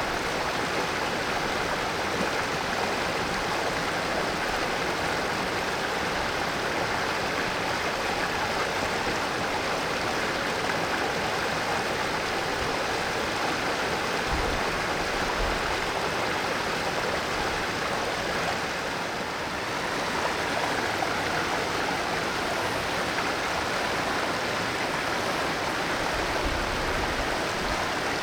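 Valley stream flowing, a steady even rush of water that dips slightly for a moment about two-thirds of the way through.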